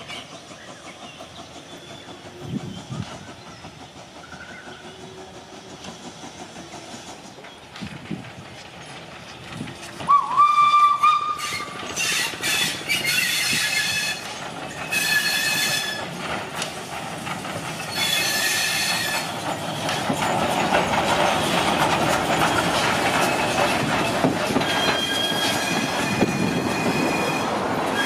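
Small steam locomotive and its coaches arriving: a short whistle that rises and holds, about ten seconds in, then repeated high wheel squeals as the train takes the curve. Near the end comes the louder rumble and hiss of the engine and coaches drawing alongside, still squealing.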